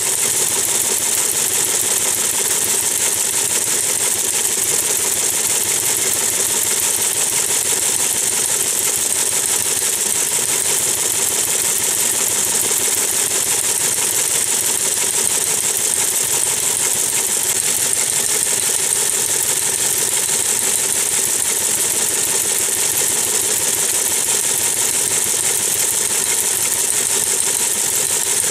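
Teletype Model 28 KSR teleprinter printing text at 60 words per minute: a steady, rapid mechanical clatter of type striking the paper, with the machine's drive running underneath.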